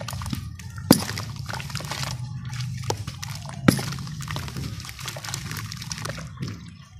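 Hands squeezing and crumbling a soaked lump of sand-cement in a tub of water: wet squelching and sloshing, with two sharp clicks, about a second in and just under four seconds in.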